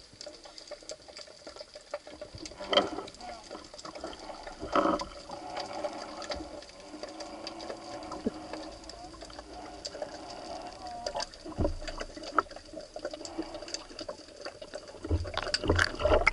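Underwater sound picked up by a diver's action camera: a steady wash of water with many scattered sharp clicks and crackles. Near the end come louder low thumps and splashing as the diver breaks the surface.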